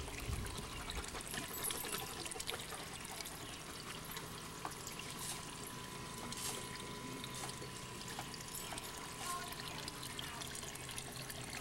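Small garden pond fountain: water trickling and splashing steadily into the pond.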